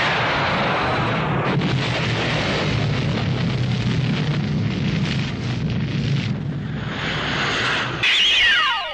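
Explosion sound effects: a long, loud rumbling roar that holds steady for about eight seconds. Near the end comes a whistle that falls steeply in pitch.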